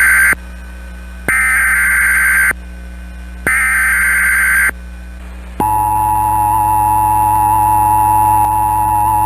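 Emergency Alert System tones: three bursts of the SAME header's digital data tones, about a second each with short gaps, then, a little past halfway, the steady two-tone EAS attention signal begins and holds. This sequence marks the start of an emergency alert broadcast, here a flash flood warning.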